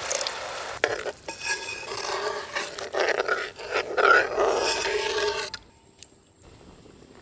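Water pouring into a pot of thick masala, then a metal ladle stirring the watery masala in the metal pot, with sloshing and sharp scrapes and knocks against the pot, stopping about five and a half seconds in.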